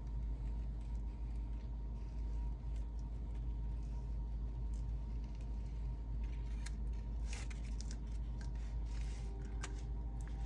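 Steady low background hum, with a few faint light clicks in the second half.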